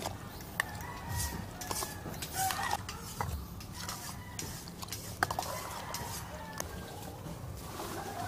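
Buko salad being mixed by hand in a stainless steel bowl: wet stirring and squishing of the coconut and fruit, with a few sharp clicks against the metal bowl.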